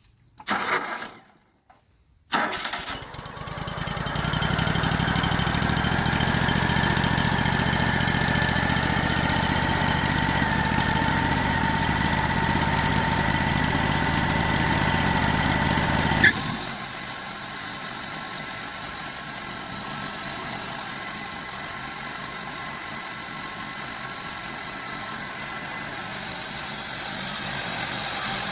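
Engine of a portable bandsaw mill being started: a short burst about half a second in, then it catches about two seconds in and settles into steady running. About sixteen seconds in there is a sharp click and the sound changes abruptly to a thinner, hissier running.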